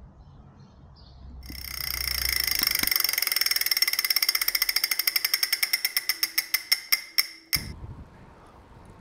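Rapid metallic ratcheting ticks, like a spinning wheel's ratchet running down: they start fast about a second and a half in, slow steadily to separate clicks, and cut off with a thud near the end.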